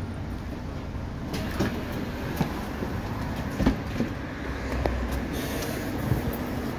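Steady low rumble of a city bus running at the stop, with a few scattered footsteps and knocks as someone steps off onto the paving.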